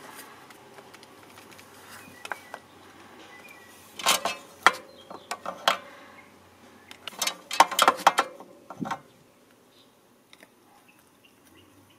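Small sharp clicks and scrapes of a tool working against a remote's circuit board while a tactile push-button switch is heated and pried off, in two busy clusters about four seconds in and again around seven to nine seconds in.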